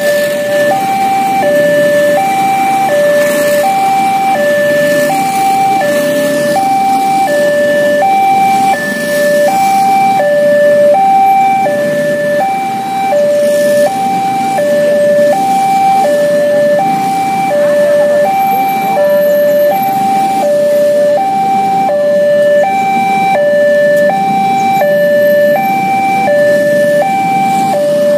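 Railway level-crossing warning alarm sounding a two-tone signal, a higher and a lower note alternating in an even rhythm, warning that a commuter train is approaching. Idling and creeping motorbikes and cars rumble underneath.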